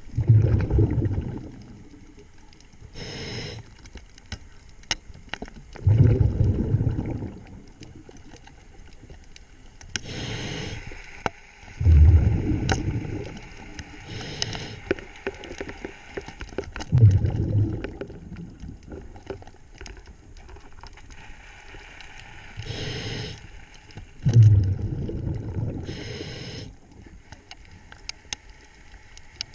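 Scuba diver breathing through a regulator underwater: about every six seconds a loud rumbling gush of exhaled bubbles, with a shorter hiss of inhaled air through the regulator in between. Sharp scattered clicks sound through the water between breaths.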